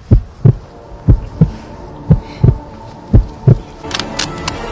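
Heartbeat sound effect: four deep lub-dub double thumps, about one a second. A few sharp clicks come near the end.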